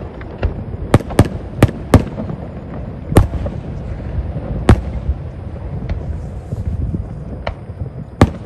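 Fireworks bursting: four sharp bangs in quick succession about a second in, then single bangs every second or two, over a low steady rumble.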